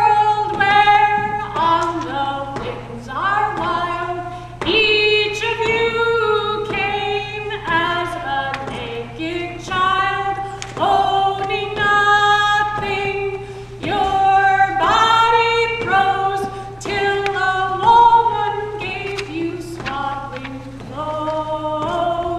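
A woman singing unaccompanied: a slow melody of held notes that step up and down, with short breaks between phrases, over a steady low hum.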